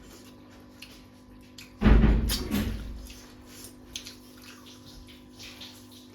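A single heavy thump about two seconds in, dying away over about a second, among a few small clicks.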